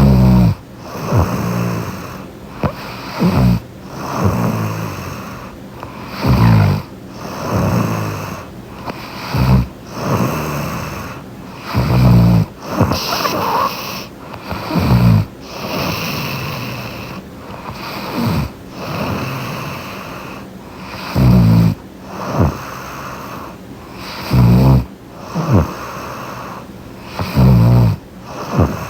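A woman snoring loudly right next to the microphone in deep sleep. The snores come in an irregular series, one about every one to three seconds.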